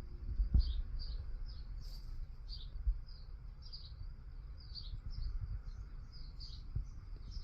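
Small birds chirping over and over, quick short chirps about two or three a second, with a low rumble and a couple of dull thumps, the strongest about half a second in.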